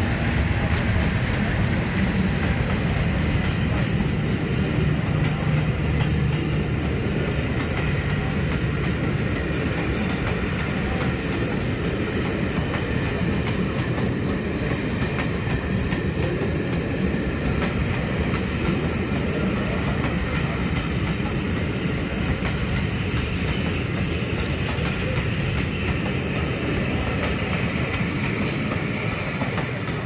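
A pair of English Electric Class 50 diesel locomotives with their 16-cylinder engines passing slowly at the head of a train. The second loco's engine is loudest in the first few seconds, then a rake of coaches rolls steadily by, and the sound falls off at the very end as the train clears.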